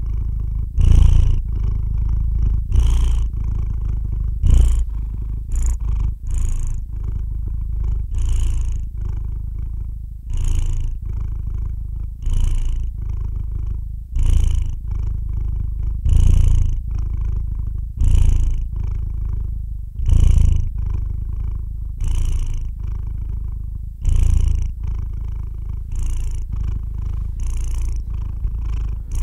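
A sleeping domestic cat purring continuously. The low rumble swells with each breath, about once every two seconds.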